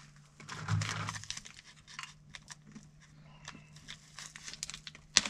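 A heavy-duty plastic food bag being handled, crinkling and rustling. A short rustle comes near the start, then scattered small crackles.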